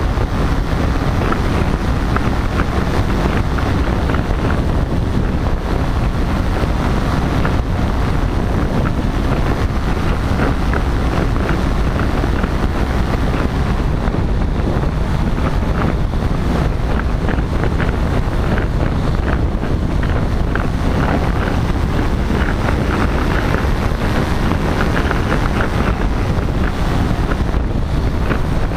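Steady wind buffeting the microphone of a powered paraglider in flight, with the paramotor's engine running steadily underneath.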